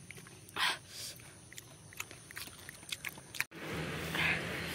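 Close-up mouth sounds of a person eating: chewing and short smacking or crunching bursts. About three and a half seconds in the sound drops out briefly, and a faint steady hum follows.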